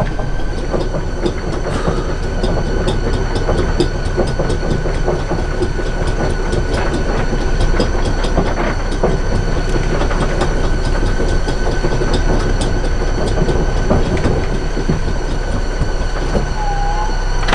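Electric anchor windlass hauling the anchor chain aboard, heard from inside the cabin: a steady motor whine with the chain links clattering over it. The windlass is run straight from the battery isolator switch, with its faulty relay bridged by a jumper cable, and the boat's engine is running underneath.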